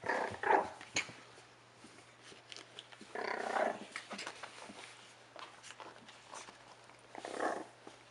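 A four-and-a-half-week-old rat terrier puppy vocalizing in short bursts: two right at the start, a longer one about three seconds in, and another near the end.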